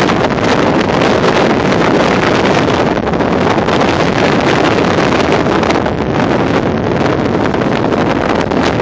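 Stormy wind blowing hard over the microphone: a loud, steady rushing noise with no letup.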